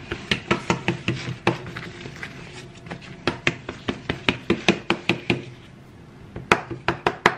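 A fork pricking shortcrust pastry dough in a lined quiche dish, the tines tapping through to the dish in quick sharp taps about five a second, with a short pause about six seconds in.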